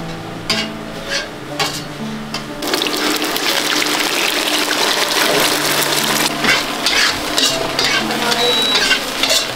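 Food being stir-fried in hot oil: a loud sizzle starts about two and a half seconds in and carries on with stirring. A few sharp knocks come before it, and soft background music plays underneath.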